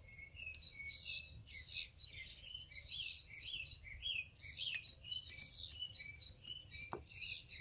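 Small birds chirping continuously, many quick repeated chirps, with a single sharp click about seven seconds in.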